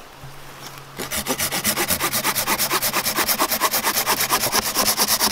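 Hand-held folding pruning saw cutting through a thin green sapling trunk: a rapid, even rasping of quick back-and-forth strokes, starting about a second in.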